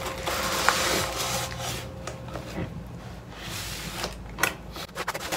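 Cardboard packaging being handled: an inner cardboard box slid out of the printed figure box and its flaps opened, a run of sliding and rustling with a few sharp clicks and crackles near the end.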